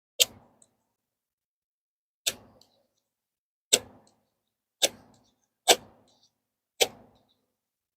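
Gerber Dime multitool's box-cutter blade scraped down a ferro rod six times, each a short, sharp scrape, one every second or two.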